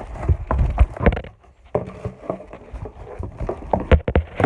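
A cardboard parcel being opened and its packing handled by hand: irregular knocks, thumps and rustling, with the heaviest thumps about a second in and near the end.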